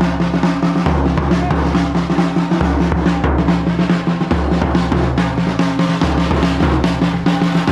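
Background music with a heavy drum beat and a bass line that changes note about every second and a half.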